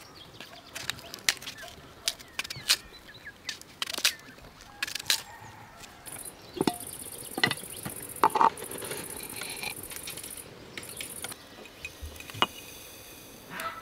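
A paring knife cutting nectarines over a metal colander: a series of sharp, irregular snaps and clicks as the blade cuts through the fruit and pieces drop into the bowl.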